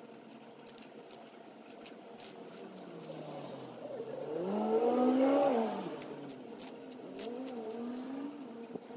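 Sulcata tortoise biting and crunching romaine lettuce, heard as a run of quick, sharp clicks, sped up. About halfway through, a louder engine-like hum rises and then falls in pitch, and a fainter wavering hum follows near the end.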